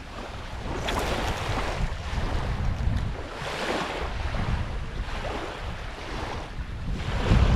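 Small waves lapping and washing up on a sandy beach in swells every two to three seconds, over the low rumble of wind buffeting the microphone.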